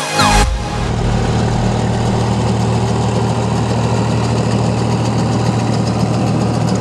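Ursus 3512 tractor's diesel engine running steadily at an even speed while it pulls a mounted field sprayer.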